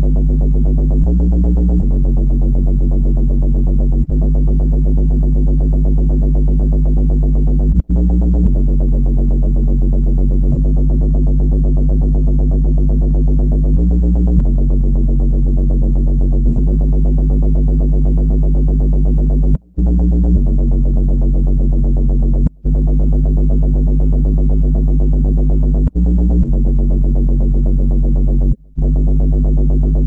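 Synthesized sci-fi supercomputer sound effect: a loud, steady electronic hum of several low held tones that shifts pitch every few seconds, cutting out briefly a few times.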